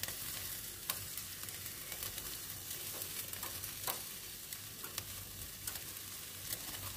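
Marinated chicken sizzling on a Tefal electric tabletop grill while being basted: a steady frying hiss with scattered sharp pops and crackles.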